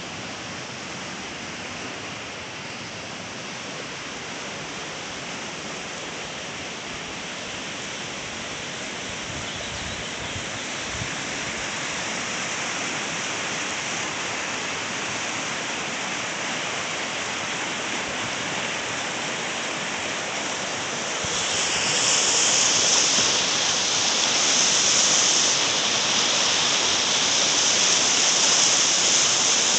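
Fast, swollen river rushing over stones, a steady roar of running water that grows louder, with a sharper, brighter hiss coming in about two-thirds of the way through.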